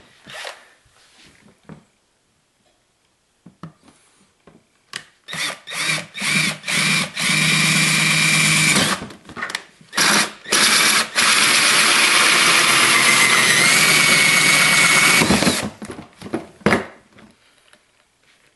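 Electric drill with a hole saw cutting through a plastic tote lid. It runs in several short trigger bursts, then in two longer runs of a few seconds each, and ends with a few clicks.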